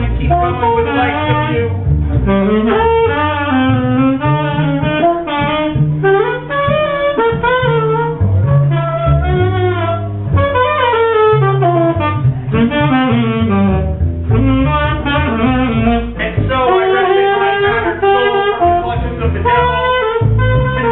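Saxophone improvising free jazz, a winding line that slides up and down in pitch, over low upright bass notes and piano.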